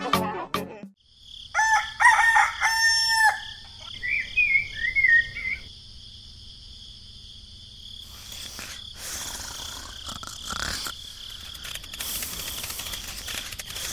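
A rooster crows once, a long held call about one and a half seconds in, followed by a few short chirping calls. Then a steady high hiss of farmyard ambience.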